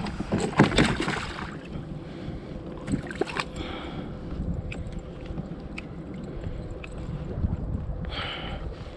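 Knocks and handling noise from a kayak while a hooked smallmouth bass is played. A cluster of knocks comes in the first second and a half, then steady wind and water noise with scattered light clicks.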